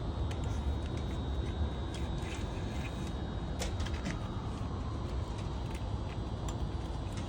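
Steady low rumble of background machinery with scattered light clicks and taps from wires and tools being handled at a compressor's electrical box.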